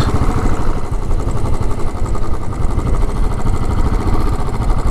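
Motorcycle engine running steadily while the bike is ridden along.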